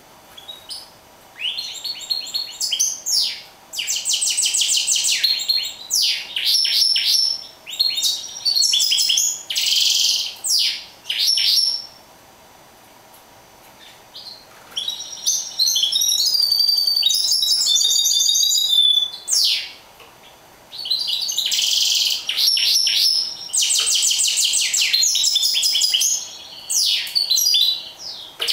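A caged mule, a finch-canary hybrid, singing: phrases of quick chirps and fast trills, broken by a pause of about two seconds near the middle and a shorter one later.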